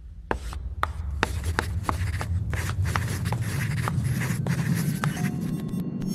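Chalk writing on a chalkboard: a quick run of taps and scratchy strokes over a low rumble. Near the end the strokes stop and a few steady electronic tones come in.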